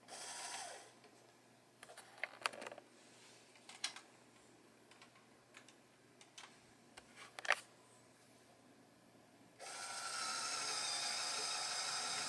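LEGO Power Functions motor-driven winch: a brief whir that winds down at the start, then scattered sharp plastic clicks from the gearing and chain, and about two seconds before the end a steady motor whir sets in as the winch pulls.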